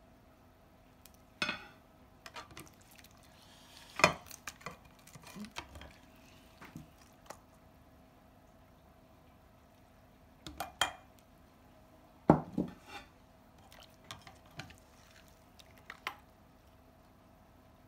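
Ceramic dinner plates and cutlery knocking and clinking on a table as fish is served out: scattered short clatters, the loudest about four seconds in and again about twelve seconds in.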